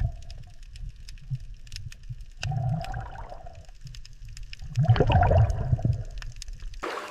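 Water splashing and gurgling in three bursts, the loudest about five seconds in, with a thin steady tone over the last two.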